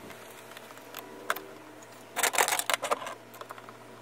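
Small sharp clicks and taps of a metal Allen key worked in a hole in a PVC pipe: one click a little over a second in, then a quick cluster about two to three seconds in, over a faint steady hum.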